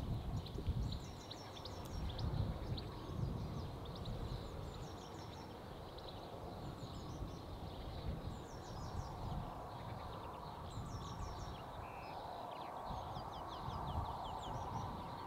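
Low, uneven wind rumble buffeting a Rode VideoMic Pro+ inside a furry dead-cat windshield, with songbirds repeating short high trilled phrases every second or two.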